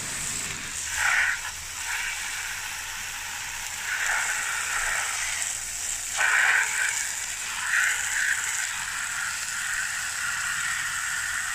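A stream of water splashing steadily onto the plastic motor housing and grille of a stand fan, swelling louder several times as it goes.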